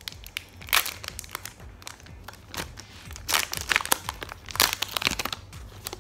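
Foil wrapper of a Pokémon booster pack crinkling and crackling as it is torn open by hand. It is a run of sharp crackles, with louder bursts about a second in and several more in the second half.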